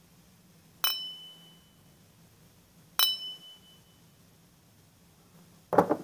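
Cut-crystal glasses clinked together twice, about two seconds apart, each strike leaving a high, clear ring that fades within a second. Near the end comes a duller knock without ring, as a glass is set down.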